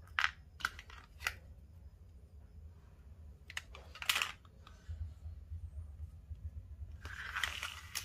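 Small tools being handled and set down on a cutting mat: a handful of light clicks and knocks, the loudest about four seconds in, then about a second of rustling scraping near the end.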